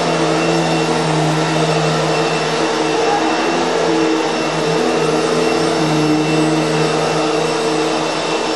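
Vacuum cleaner running steadily: a loud motor hum over a rushing hiss of air, with the pitch wavering slightly as it is pushed about.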